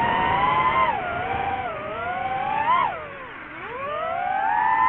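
DJI FPV quadcopter's motors and propellers whining, the pitch rising and falling with the throttle. It dips sharply about three seconds in, then climbs steadily back up.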